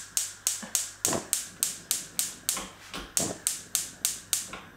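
Gas hob's electric spark igniter clicking rapidly and evenly, about four clicks a second, as a burner is lit under a saucepan; the clicking stops just before the end.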